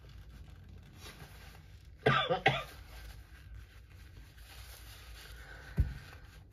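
A woman coughing twice in quick succession about two seconds in, the cough of someone with a head cold. A short low thump near the end.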